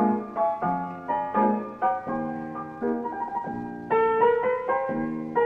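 Solo jazz piano playing a slow improvised tune: struck chords and melody notes about every half second, getting louder about four seconds in.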